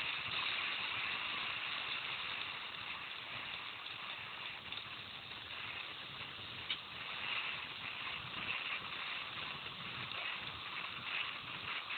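Mountain bike rolling downhill on a gravel forest road: a steady crunch and rattle of the tyres and bike, with one sharp tick about two-thirds of the way through.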